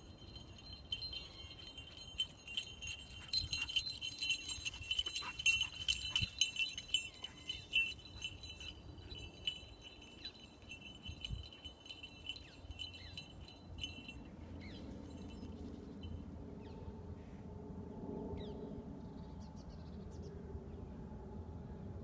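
Falconry bells on a running English Setter jingling quickly and steadily, loudest about four to eight seconds in, then fading out around fourteen seconds in.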